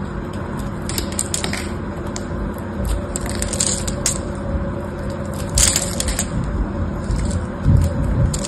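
Craft knife blade scoring and carving into a bar of soap, crisp scratchy cuts in short irregular bursts as small soap cubes crumble off, over a steady low hum.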